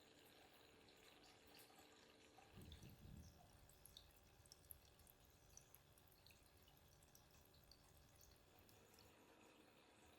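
Very faint water dripping and trickling from a small pump-fed waterfall in a moss terrarium, heard as scattered light ticks, with a brief low rumble about two and a half seconds in.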